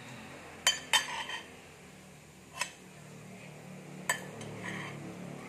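Metal spoon clinking against a ceramic dinner plate. There are four sharp clinks: two in quick succession just under a second in, one a little past halfway, and one more about a second before the end.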